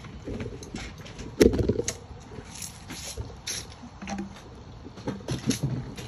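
Irregular clicks and knocks, with a louder thump about one and a half seconds in.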